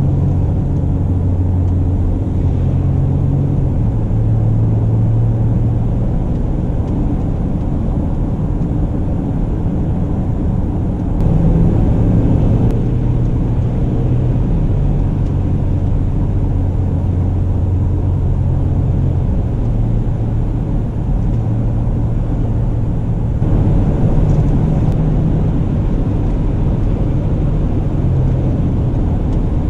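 Mercedes-Benz GLE Coupe driving: a steady low engine drone under road and tyre noise, with the engine note shifting in pitch several times. The road noise grows louder about 11 seconds in and again near 24 seconds.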